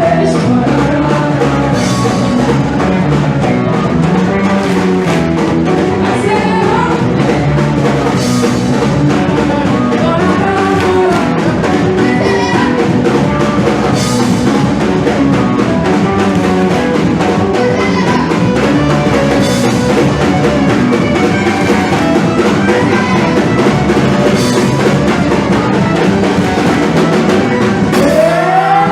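Music with a drum kit keeping a steady beat and a singing voice.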